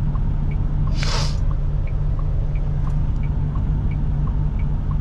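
Inside a truck cab: the diesel engine runs with a steady low rumble while the turn-signal indicator ticks evenly, alternating between two pitches at about three ticks a second. A short hiss sounds about a second in.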